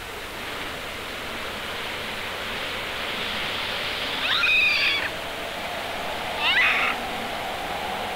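A Japanese macaque gives two short, shrill cries a second or so apart, over a steady rushing noise.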